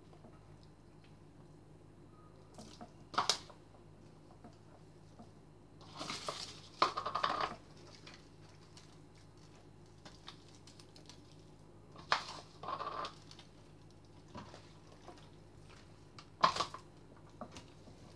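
Hands rubbing and squeezing a spice rub into the skin of a whole raw duck, heard as a few short, separate bursts of handling noise, the longest about a second and a half, over a faint steady hum.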